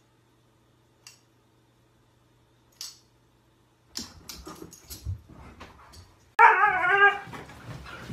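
Husky's loud call with a wavering pitch, about a second long, coming about six and a half seconds in. Before it, from about four seconds in, the dog is moving about with scattered scuffs and knocks.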